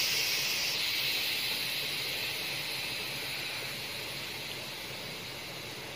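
Steady hiss of steam escaping from the vent of a closed aluminium Prestige pressure cooker as it comes up to pressure for its first whistle, slowly getting quieter.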